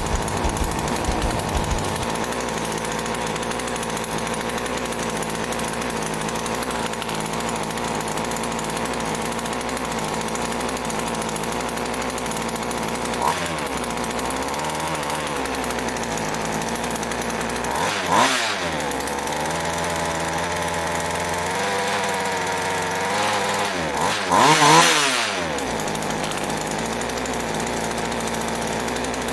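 Poulan 2150PR Predator 36cc two-stroke chainsaw, with no bar or chain fitted, idling steadily on a newly fitted carburetor and revved up and back down three times, the first briefly and the last the longest and loudest.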